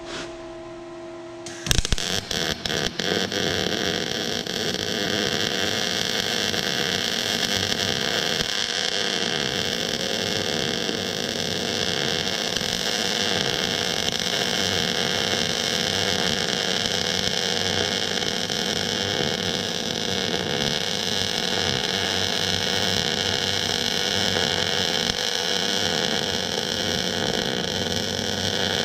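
Electric welding arc striking with a few short sputters about two seconds in, then burning as a steady, loud crackling hiss.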